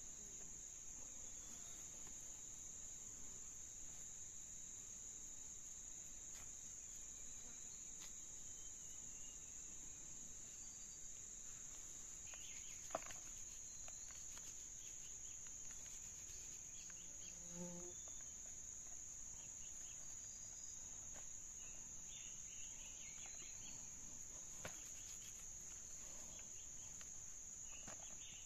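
Faint, steady high-pitched drone of forest insects, with a single sharp click a little under halfway through and a few short chirps scattered over the rest.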